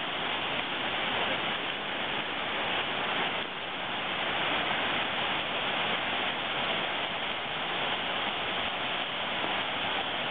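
Steady rushing of water pouring over a river weir.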